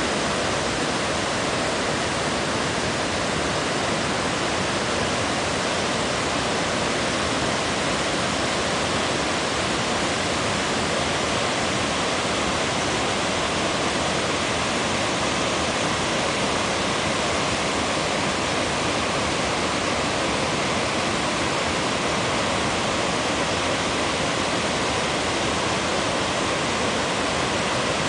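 Small river waterfall: water pouring over a drop, a steady even rush.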